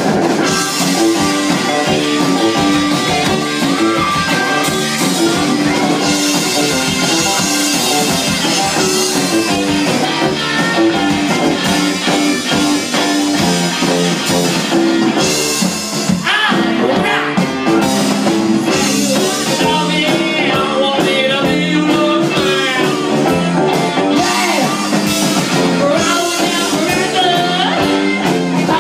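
Rock band playing live, loud and steady, with electric guitar and drum kit.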